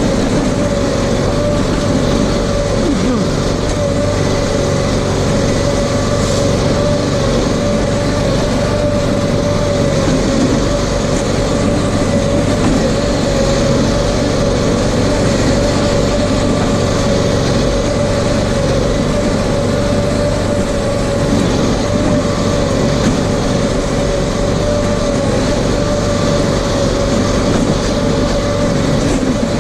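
RS1000 off-road vehicle running steadily while driving, its engine holding a near-constant pitch with a steady whine over it.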